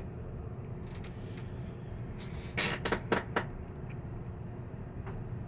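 Handling noise from working on a fan motor: a brief cluster of scrapes and rustles about halfway through as the new thermal fuse's leads are folded over against the windings, over a steady low hum.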